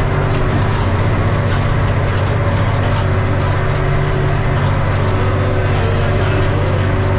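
Valmet 118 tractor's diesel engine running steadily through a straight exhaust pipe, under load pulling a seeder.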